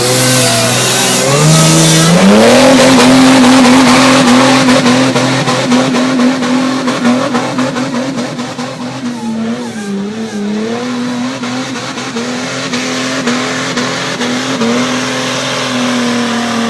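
Car engine revved up about two seconds in and held at high revs, dipping briefly near the middle and coming down at the end, with a rushing noise over it in the first seconds.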